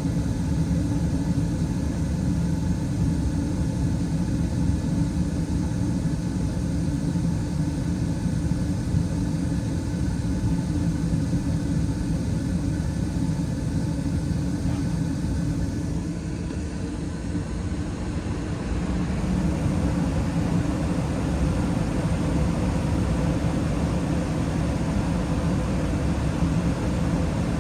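2019 Carrier Performance Series 80% gas furnace running after its first start-up of the season, a steady low-pitched mechanical noise. About two-thirds of the way through it dips briefly, then carries on a little fuller.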